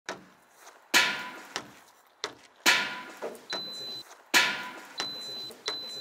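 A series of sharp bangs and knocks, each ringing out briefly, from a boot kicking a rooftop dome skylight. A printer beeps three times in the second half, short high beeps.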